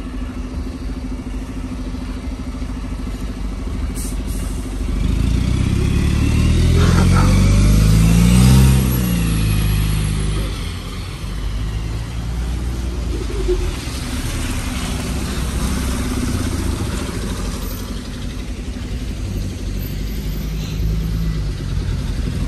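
Street traffic: a motor vehicle drives past close by, getting louder from about five seconds in with its engine note rising, loudest around eight seconds and gone by ten. A steady low traffic rumble runs underneath.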